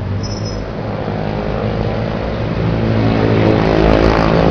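Motor scooter engines passing close by in street traffic, the engine hum growing louder toward the end as a scooter goes past.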